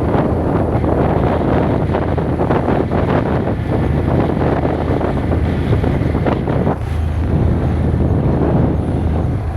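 Wind buffeting the microphone: a steady, loud rumbling rush with irregular gusts.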